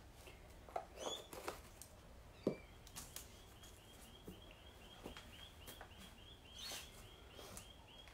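Quiet handling of craft materials on a table: light taps and plastic rustles as a stencil sheet and card are picked up and set down, the sharpest tap about two and a half seconds in. A faint, even high chirping, about four chirps a second, runs underneath from about three seconds in.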